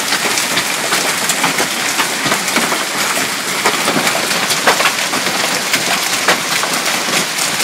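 Hailstones pelting down in a heavy storm: a dense, steady hiss of rapid impacts, with many sharper individual hits cracking out through it.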